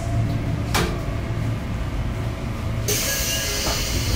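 Inside a Sotetsu 8000 series commuter train: a steady low hum from the car, a single click about a second in, then a sudden loud hiss of released air from the train's pneumatic system about three seconds in.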